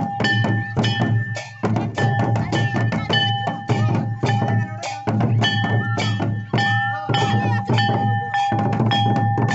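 Santali folk music driven by tumdak and tamak hand drums in a fast, steady rhythm, with a sustained high melodic tone held over it.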